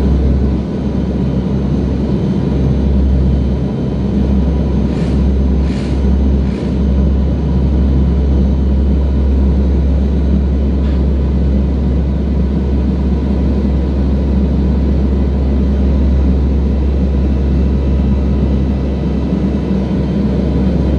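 Steady, loud drone of the NASA P-3 Orion's four Allison T56 turboprop engines, with a few faint brief hisses about five to seven seconds in.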